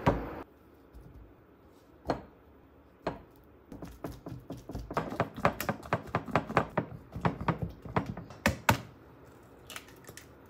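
Silicone spatula mashing ripe bananas in a glass mixing bowl: a couple of single knocks, then a quick, irregular run of taps and clacks against the glass for about five seconds.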